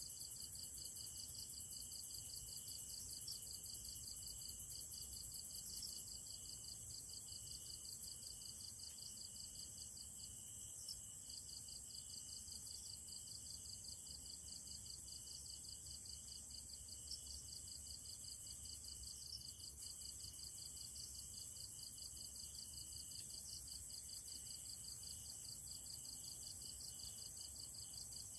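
Night chorus of crickets and other insects: a steady, fast-pulsing high chirring in several pitches at once, dropping a little in level a few seconds in.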